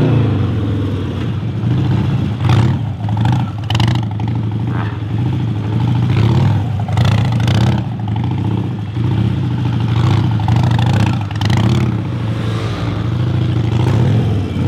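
Modified Harley-Davidson Sportster's air-cooled V-twin engine running loud and revving up and down over and over as the bike is ridden through wheelie stunts.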